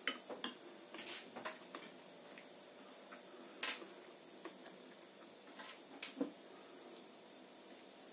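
Cutlery clinking against a dish while eating: a few light, scattered clinks, the loudest about three and a half seconds in.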